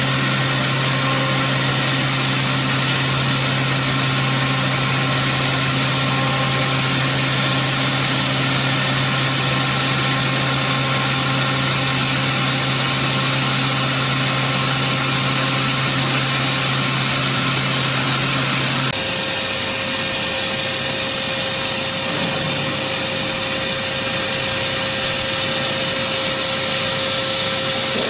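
CNC machining center spindle running at 8,000 rpm while an 8 mm ball end mill takes a light finishing cut on a steel ball screw thread, giving a steady hum over a dense hiss. About two-thirds of the way through the sound changes abruptly: the low hum drops away and a higher steady tone takes its place as the next finishing pass begins.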